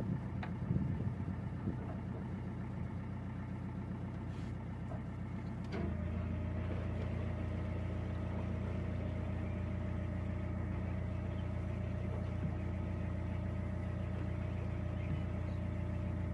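Narrowboat's diesel engine running steadily at cruising revs. About six seconds in, after a brief click, it steps up to a louder, fuller note and holds there.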